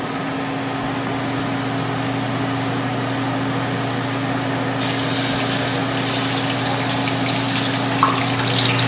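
Whole tilapia frying in a skillet of hot oil: a crackling sizzle starts about five seconds in as the fish goes into the oil, over a steady low hum.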